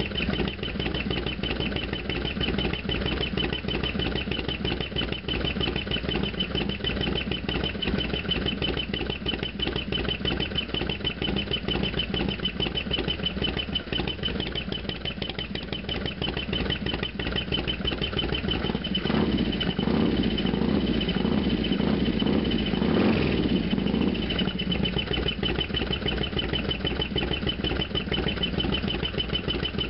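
Harley-Davidson FXDX's air-cooled Twin Cam 88 V-twin idling steadily, with a thin high whine and fast ticking running over it. The engine grows louder for a few seconds about two-thirds of the way through, then settles back.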